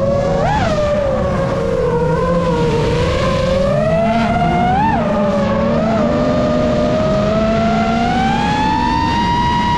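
FPV drone's motors and propellers whining, the pitch gliding up and down with the throttle, with sharp blips about half a second in and near five seconds and a slow climb to a higher pitch near the end.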